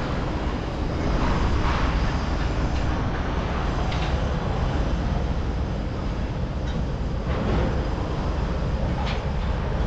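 Steady wind rumbling on the camera's microphone high up on a tower crane, heaviest at the low end and fluctuating unevenly, with faint short clicks now and then.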